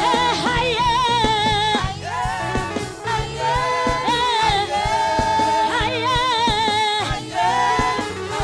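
Swahili gospel worship song: sung phrases with vibrato over instrumental backing, each phrase lasting a few seconds with short breaks between them.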